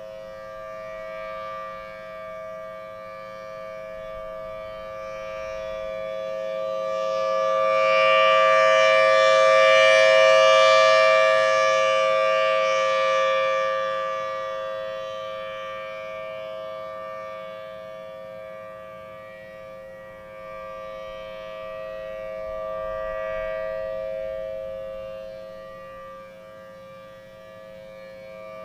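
Federal Signal Thunderbolt 1000T outdoor warning siren sounding its monthly test: a steady two-note chord held at constant pitch. It swells loud about a third of the way in, fades, and swells again more weakly near the end as the rotating siren head turns toward and away.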